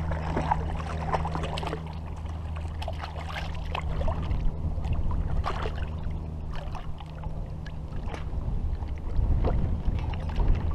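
Hooked largemouth bass splashing and thrashing at the surface beside a kayak, with water sloshing as it is grabbed by the lip.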